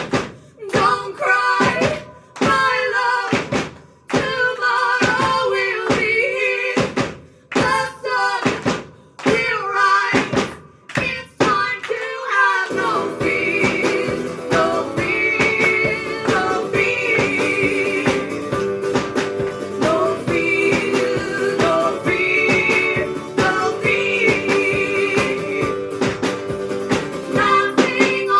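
Live song performance with guitar and singing: short stop-start phrases broken by brief gaps for about the first twelve seconds, then the playing runs on continuously with wavering high held notes over it.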